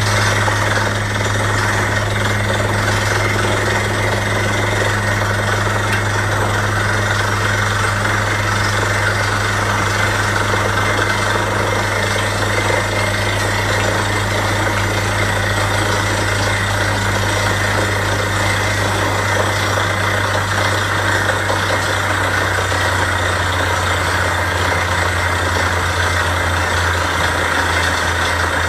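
Borewell drilling rig's engine running steadily under load, a deep even hum with a broad hiss over it.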